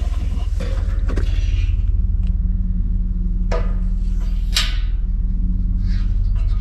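A steady low mechanical hum runs throughout. Over it come a few short metallic scrapes and clicks, about three and a half and four and a half seconds in, as a propane hose fitting is threaded by hand onto a tank's vapor valve.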